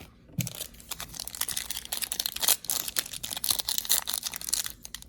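Foil trading-card pack wrapper crinkling and tearing as it is ripped open and handled, an irregular crackling that runs for about four seconds.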